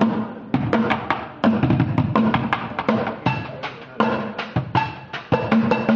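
Bucket drumming: two street drummers beating a fast, busy rhythm on upturned plastic buckets and pans, some hits ringing briefly with a pitched tone.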